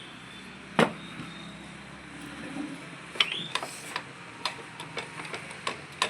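Worn alternator bearing with excessive play clicking and knocking as it is worked by hand: one sharp knock about a second in, then a short squeak and an irregular run of ticks, two or three a second.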